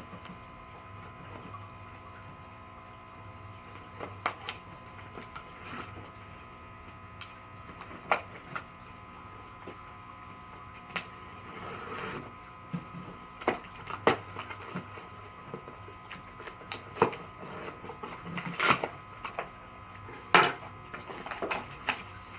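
A cardboard box being opened and its packaging handled: scattered clicks, taps and rustles, with a few louder knocks near the end, over a steady electrical hum.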